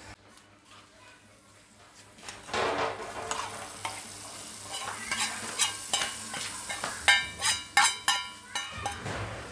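Hot oil and fried chopped garlic poured from a frying pan into a pot of soup broth, sizzling as they hit it, starting about two seconds in. A metal spoon scrapes the pan and clinks against it in a quick run of ringing knocks in the second half.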